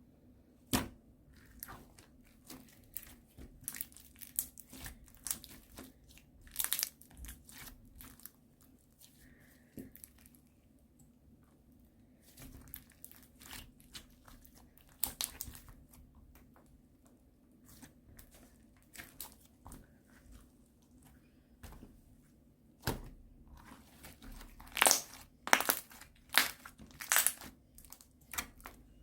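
Ice slime, a slime with a dried, hardened crust, being pressed and pulled by hand. Its crust cracks and crinkles in irregular snaps, thickest near the end.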